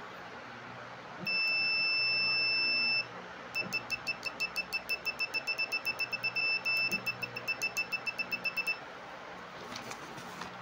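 UNI-T UT15B Max multimeter's continuity beeper sounding as the probe tips meet: one steady high beep lasting under two seconds, then a quick string of short beeps, about six a second, for some five seconds as the tips are tapped together.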